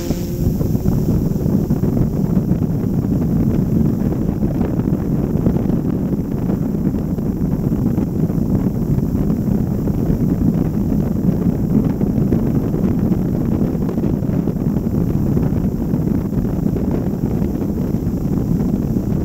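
Steady low wind rumble on the microphone of a 360 camera carried by a quadcopter in flight, buffeted by the airflow around the spinning propellers.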